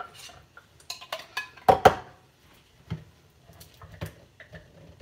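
Metal kitchenware and dishes being handled at a kitchen sink: a series of light clinks and knocks, with one sharp clank about two seconds in.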